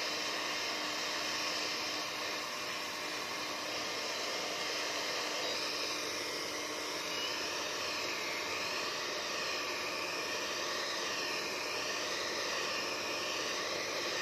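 Hair dryer blowing steadily on a wet kitten just out of its flea bath.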